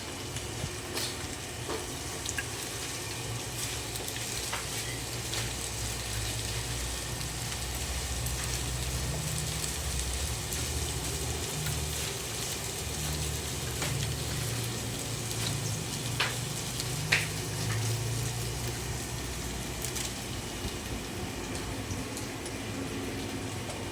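Green beans and sayote sizzling as they sauté in oil in a pan, a steady hiss, with a few sharp clicks of a cooking utensil against the pan, the loudest about seventeen seconds in.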